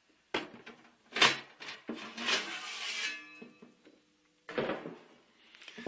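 Metal covers of a Siemens size 2 UL Type 1 wall-mount kit being handled and slid apart: a few sharp metallic clanks, the loudest about a second in, a scraping slide of sheet metal with a faint ringing, then more knocks near the end as a piece is set down on the table.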